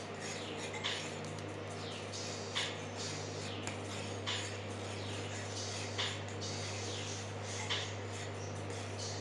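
A metal spoon stirring thickening milk in a steel saucepan, scraping across the pan about every second and a half to two seconds over a steady low hum.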